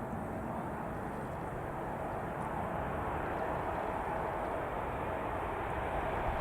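Jet airliner on approach: a steady engine rush with a faint whine, slowly growing louder.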